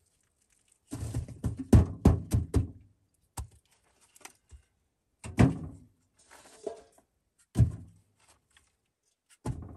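A series of dull thuds and knocks: a quick cluster of about six about a second in, then single hits every two seconds or so, some with a short ringing tail.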